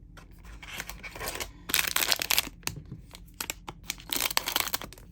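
Crinkling and tearing of a plastic trading-card pack wrapper being handled and ripped open, in irregular crackly bursts, loudest about two seconds in and again near the end.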